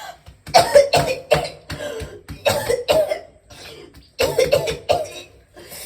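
A person coughing hard in three fits, each a run of several quick, rasping coughs with a short pause between fits.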